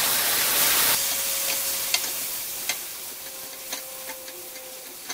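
Shishito peppers sizzling in hot oil in a metal pot as soy sauce and mirin cook in, while a spatula stirs them with a few clicks against the pan. The sizzle is loud for about the first second, then drops and fades.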